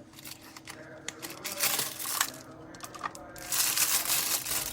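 Packaging being handled: two spells of crinkling and rustling, about a second and a half in and again from about three and a half seconds, among small clicks and taps.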